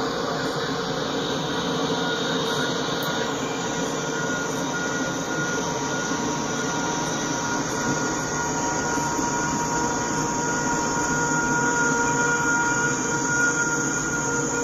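A short ballast train led by a Norfolk Southern SD40-2 locomotive rolling past, the hopper cars' wheels making a steady rumble on the rails. High, steady wheel squeal from the flanges on the sharp curve runs through it and grows stronger after about ten seconds.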